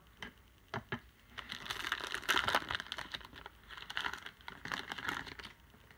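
Trading-card pack wrapper crinkling and crackling as it is torn open, a dense run of small crackles starting about a second and a half in, after a couple of faint clicks.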